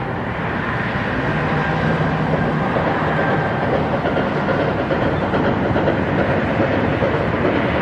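DM&IR 332, a 1906 2-8-0 Consolidation steam locomotive, chugging hard up a grade with a train of passenger cars. Its working sound grows gradually louder.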